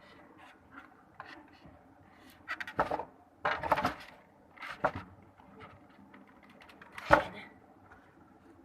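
Hard plastic parts of a folding washing machine being handled: clusters of knocks and rattles a few seconds in, and one sharp, loud knock near the end.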